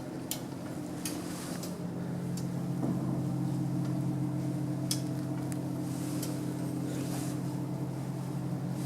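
Heavy-duty goods lift machinery running: a steady low hum with several fixed tones, growing louder about three seconds in, with scattered sharp clicks.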